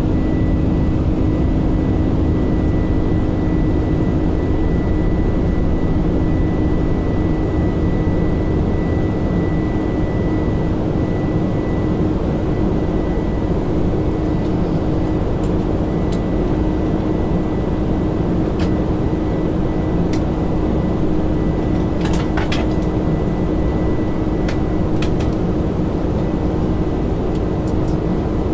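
Steady engine and airflow noise inside an airliner cabin during climb-out: a loud, even rumble with a constant low hum. A few faint clicks come in the second half.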